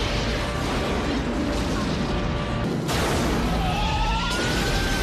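Film sound effects of a fiery explosion: a dense rush of fire and blast noise cuts off abruptly about three seconds in. A siren then wails, its pitch rising slowly and then falling, over a continuing low rumble.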